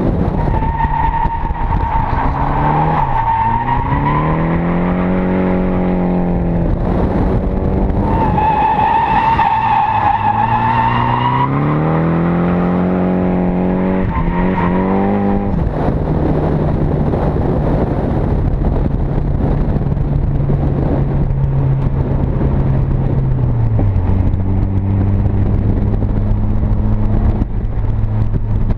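Drift car engine revving up and down hard through slides, with two long tyre squeals in the first half. Then the engine holds a steadier note, which drops lower about two thirds of the way through.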